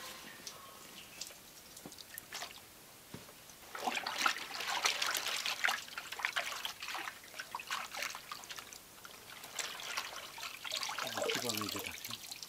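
Red madder dye bath in a wooden tub splashing and sloshing as cloth is worked in it by hand, starting about four seconds in. Near the end the dyed cloth is lifted out and dye trickles and drips off it back into the tub.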